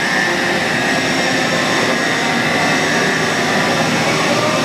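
Steady machine noise from a running Daewoo Puma 500 CNC turning center, an even hiss with a faint high whine that never breaks.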